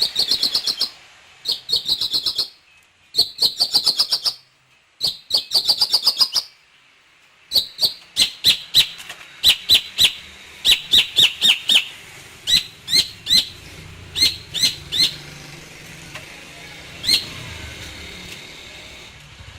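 Long-tailed shrike (pentet) singing: four short phrases of rapid, high repeated notes, then a run of loud, separate calls two or three a second, thinning out to a single call near the end.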